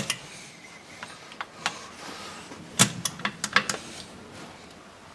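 Sharp metallic clicks and knocks of hand tools working on a stripped-down Honda CRF 250 engine, with a quick run of about half a dozen clicks about three seconds in.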